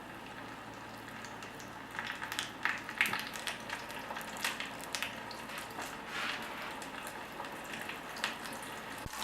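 Hot oil sizzling steadily around flour-battered cauliflower pieces as they fry, with sharp crackling pops starting about two seconds in.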